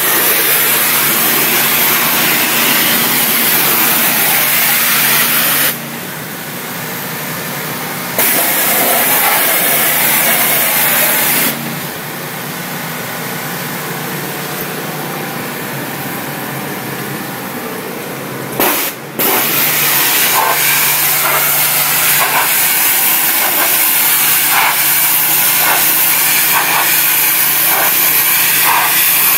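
Hot-water pressure washer at 3000 psi blasting a wall, a loud steady hiss of spray over the unit's engine running underneath. The spray falls away twice, for about two seconds around 6 s in and for about seven seconds from about 12 s in, leaving the engine hum, then comes back on.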